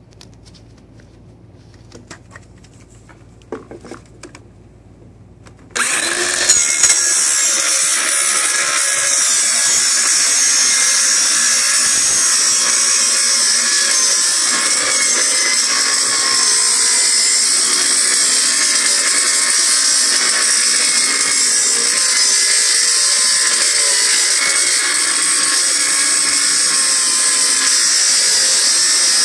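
A few light handling clicks, then about six seconds in a Ryobi 18-volt cordless circular saw with a Diablo blade starts abruptly and cuts steadily through 5/8-inch plywood with a high-pitched whine.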